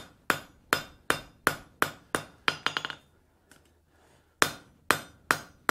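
Hand hammer striking red-hot steel on an anvil in a steady rhythm, about three blows a second, bending a leg of a short bar out of the way. Near the middle come a quick flurry of lighter ringing taps, then a pause of about a second and a half before four more blows.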